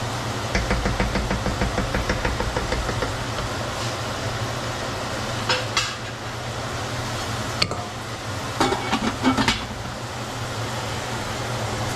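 A cooking utensil working in a pot: a quick run of even scraping strokes about half a second in, then a few scattered clinks and clatters of utensils and cookware, over a steady background hum.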